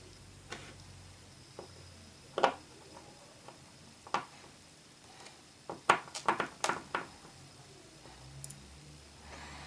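Small sharp clicks and taps of a precision screwdriver and tiny screws against an iPhone 4's housing during reassembly. Single clicks come about half a second, two and a half and four seconds in, with a quick run of clicks around six to seven seconds.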